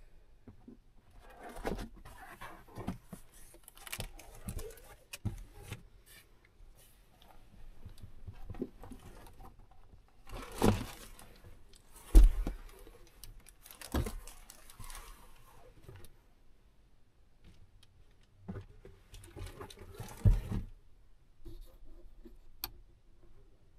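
Rustling of bedding and clothing, with scrapes and several bumps and knocks, as someone moves about and packs up inside a car's cabin.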